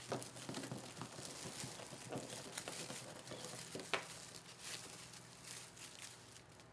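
Stiff polyester-polypropylene fabric mesh rustling and crinkling as hands pinch and gather it into ruffles, with one sharp click about four seconds in.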